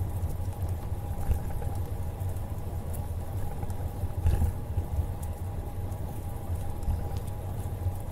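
Wind rumble on the microphone of a camera moving at cycling speed, over the rolling noise of bicycle tyres on asphalt, with a faint steady whine.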